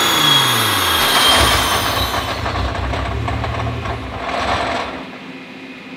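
Nissan GT-R's twin-turbo V6 on a chassis dyno winding down off the throttle, its engine note and a high whine falling in pitch over the first second or two, then a low rumble from the coasting drivetrain and rollers that fades out about five seconds in.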